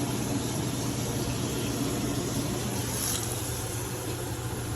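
Water being poured into a pot of simmering gravy, with a steady low hum underneath.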